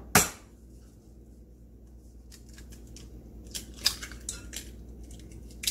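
An egg being cracked: a sharp tap of the shell against a hard edge just after the start, then a run of small crackles and clicks as the shell is pried apart over a glass bowl, the loudest click near four seconds in.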